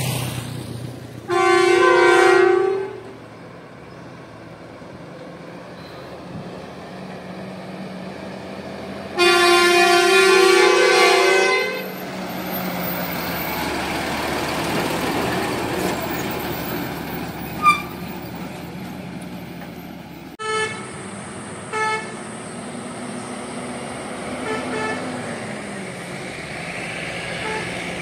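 Truck horn sounding two loud long blasts, the second about three seconds long, over a truck engine running steadily. Later come two short toots of a horn.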